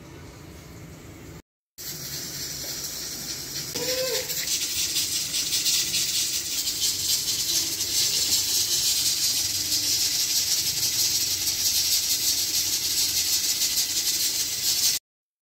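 Steady hissing noise with a fine rattling texture. It comes in after a brief dropout about a second and a half in and gets louder about four seconds in.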